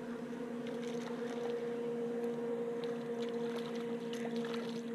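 Steady low drone of a distant motorboat engine across the water, holding one pitch throughout, with a few faint ticks over it.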